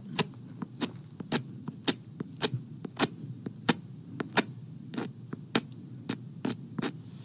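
A rounded hammerstone scraping and tapping along the edge of a flint core as a Levallois knapper grinds the edge dull to make a striking platform. It makes an irregular run of short, sharp stony clicks, about three a second, over a low steady hum.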